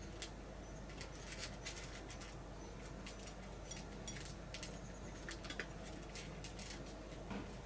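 A cat eating dry kibble from a metal bowl: irregular quick crunches and clicks in small clusters as it chews and picks up pellets.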